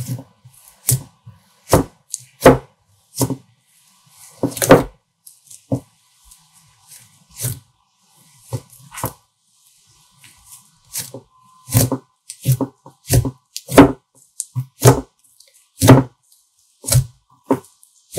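Fluffy slime pressed and poked by fingers in a glass bowl, giving a series of sharp popping clicks as trapped air bursts. The pops are irregular at first and come faster, about one or two a second, in the second half.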